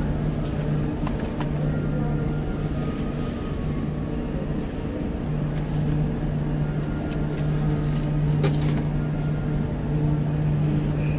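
Steady low electrical hum of supermarket refrigerated display cases, dropping out briefly a couple of times, with a few faint clicks.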